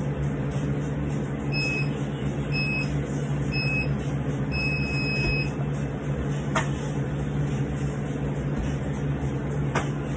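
Interval timer counting down: three short high beeps about a second apart, then one longer beep marking the start of a 30-second work interval. A steady low hum runs underneath, and two sharp knocks come later.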